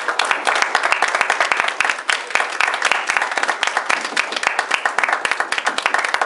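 A small audience applauding, many hands clapping in a dense, uneven patter.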